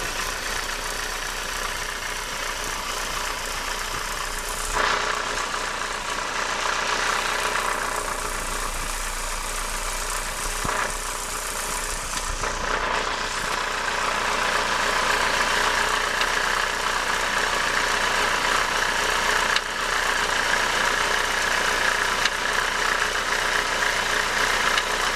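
Renault F7P 1.8-litre 16-valve four-cylinder engine idling with its alternator belt off, with a strange noise from the cambelt area. The noise gets louder about halfway through.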